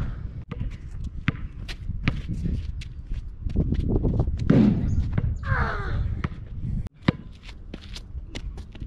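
A basketball dribbled on an asphalt street: a run of short, sharp bounces at uneven spacing, with a louder thud about four and a half seconds in.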